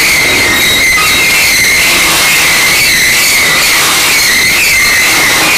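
Steel wheels of a freight train squealing against the rails as the cars roll through the street track: a loud, steady high-pitched squeal that wavers slightly in pitch.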